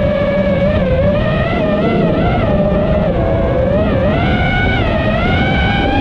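iFlight Nazgul5 5-inch FPV quadcopter in flight: its brushless motors and propellers whine in a pitch that wavers with the throttle and steps up about four and a half seconds in. Heavy wind rumble sits on the onboard camera's microphone underneath.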